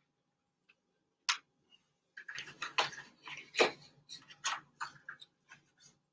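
Packaging being handled during an air fryer unboxing: one sharp click just over a second in, then a few seconds of clicks, knocks and rustling as the box and its contents are opened and moved.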